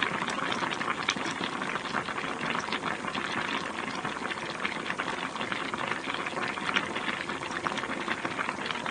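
Food sizzling and bubbling in a cooking pan: a steady, dense crackle of many small pops.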